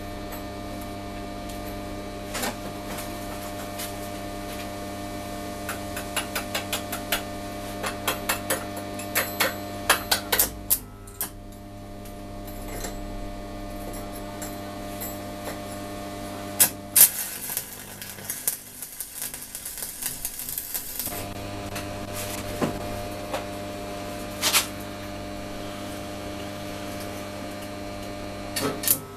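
Steel rings clinking and tapping against a steel bench plate as they are handled and set in place, a rapid run of small clicks and a few louder single knocks, over a steady electrical hum.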